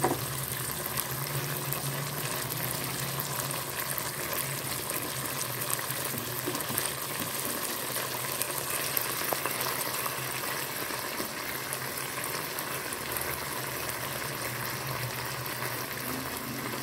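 Chicken mince frying in oil and sauces in a wok, sizzling steadily as it is stirred with a silicone spatula.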